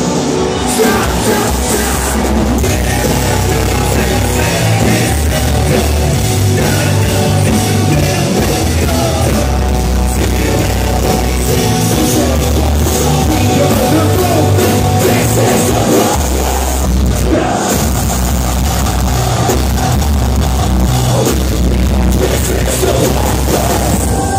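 A live band playing a loud heavy rock song, with electric guitar, drum kit and vocals into microphones.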